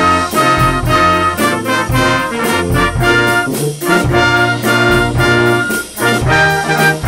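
Small German brass band (Blasmusik) playing a tune together: trumpets and flugelhorn carry the melody over tubas, with saxophone and flute, and a drum kit keeps a steady beat.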